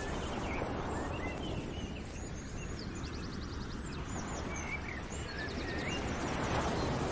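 Outdoor ambience: several birds chirping, with a couple of quick trills, over a steady low rumbling noise.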